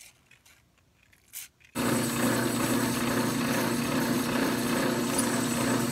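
Drill press running and spinning a brass cartridge-casing pen body while sandpaper is held against it: a steady motor hum under a rasping sanding noise, starting abruptly about two seconds in.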